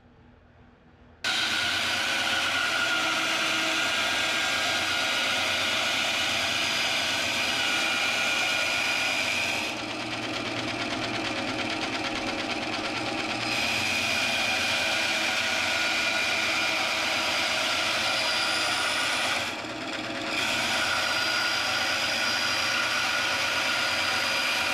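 Rikon 10-inch bandsaw with a 1/2 inch resaw blade, running and ripping a thin 1/4 inch strip from an old reclaimed 2x4. It comes in abruptly about a second in as a steady hum with hiss, and the hiss falls away briefly twice.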